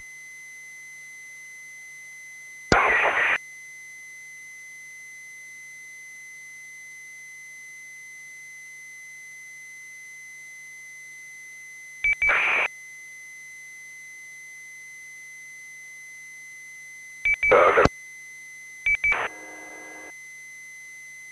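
Amateur radio repeater channel idle between transmissions: brief key-ups about three, twelve and eighteen seconds in, each a short burst of static squelch noise, most led by a quick group of beep pips, plus a brief multi-tone beep just after the last one. A steady faint high whistle runs underneath.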